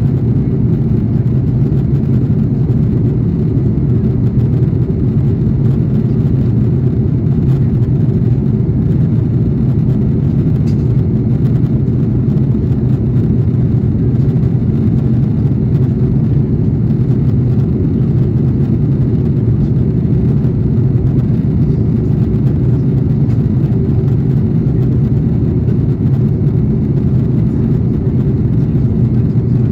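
Cabin noise inside an Airbus A330-300 in flight: a steady, deep rumble that stays even throughout.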